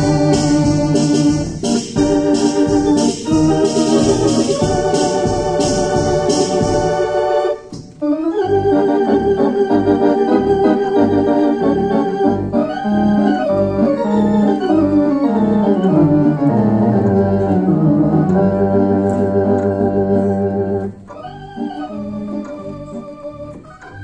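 Theatre organ played live: a full, bright registration over a pulsing bass line, a brief break about eight seconds in, then a lighter passage with a descending melodic line that grows quieter near the end.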